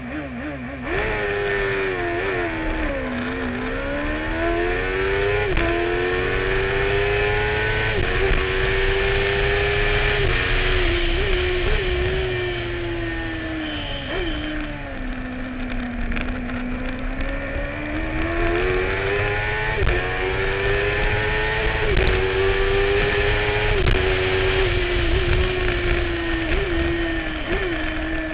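Suzuki-engined racing sidecar outfit at race pace, heard from onboard: the engine holds high revs, with short jumps at gear changes. The revs drop low twice, about three seconds in and again around the middle, as it slows for corners, then climb back.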